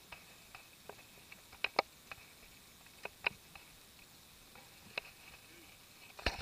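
Scattered light clicks and taps from gloved hands handling a fishing rod and baitcasting reel, over a faint steady hiss. A louder clatter starts right at the end.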